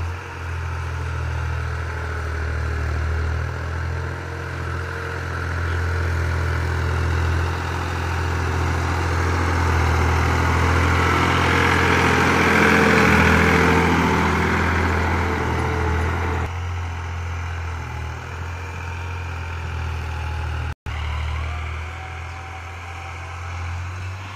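New Holland 3600-2 tractor's three-cylinder diesel engine running steadily under load as it pulls a tine cultivator, growing louder as it passes close by about halfway through, then fading as it moves away.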